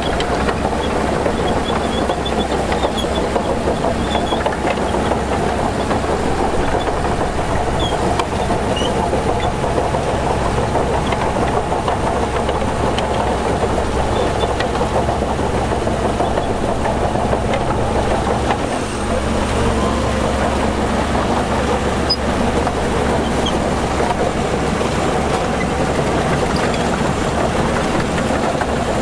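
Heavy diesel earthmoving machinery running steadily, with a short dip in level about two-thirds of the way through.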